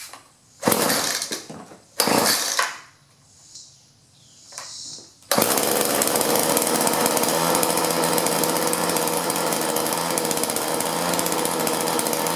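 Poulan 445 Pro pole saw's small two-stroke engine being pull-started: two pulls on the recoil starter cord, then about five seconds in it catches and keeps running steadily.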